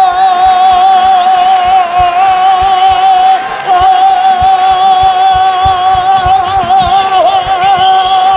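A man's voice holds one long, high sung note with a wavering vibrato. It breaks off briefly about three and a half seconds in, then carries on. A low rhythmic beat runs underneath.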